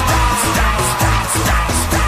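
Dance-pop backing music with a steady beat, and a long held high note that slides slightly lower.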